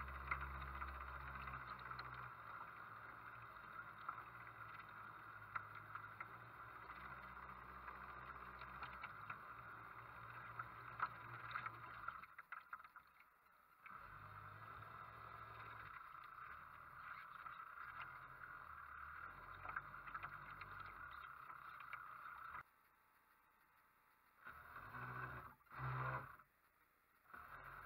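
Steady rushing and lapping of choppy lake water close to the camera as a radio-controlled model sailboat moves through it, with small clicks of splashes. It breaks off briefly about halfway through. Near the end it falls much quieter, apart from two short splashy bursts.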